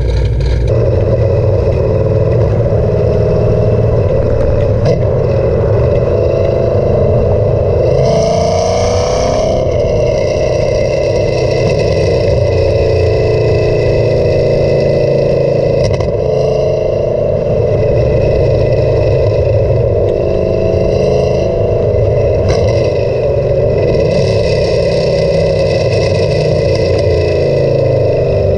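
Exhaust of a cammed Chevrolet Camaro SS V8 through an MBRP aftermarket exhaust, heard right at the rear bumper while the car is driven: a loud, steady exhaust drone. About eight seconds in the engine note climbs, then drops back a second or so later.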